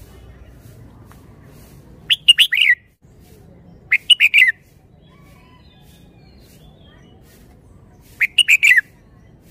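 Red-whiskered bulbul singing three short, loud phrases of quick notes, about two, four and eight seconds in.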